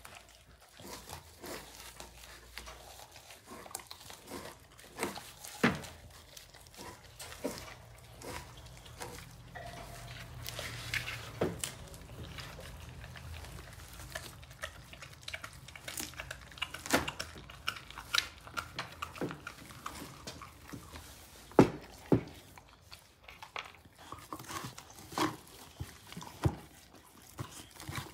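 Two border collies chewing and gnawing a large raw meaty bone: irregular sharp cracks and scrapes of teeth on bone and tearing of meat, with the loudest crack about three-quarters of the way through.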